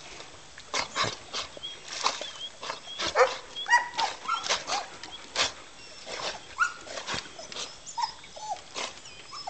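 Poodles whining and yipping in many short cries that slide up and down in pitch, with a few sharper barks between them: dogs impatient for their turn to swim after the toy.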